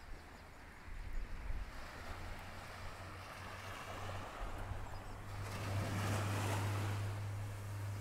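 Small, gentle sea waves breaking and washing up onto a sandy beach. The wash swells to its loudest about six seconds in, then eases, with a steady low rumble underneath from about halfway.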